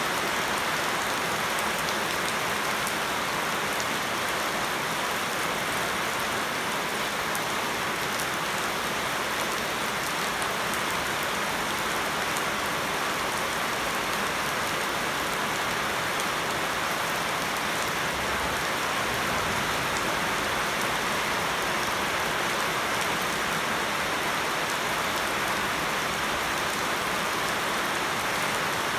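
Heavy rain falling steadily on leafy shrubs and a flooded paved yard: a dense, even hiss of drops hitting leaves and standing water, with no thunder.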